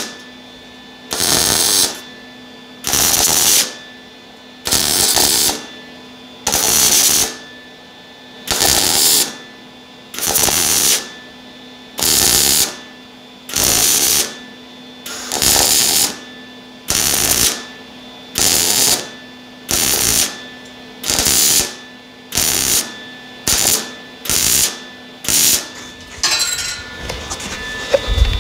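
MIG welder laying a stitch weld around a steel exhaust pipe in short bursts of arc crackle, one every second or two and coming quicker near the end, with a low hum between them. The welds are laid one dot at a time so the thin pipe wall does not burn through.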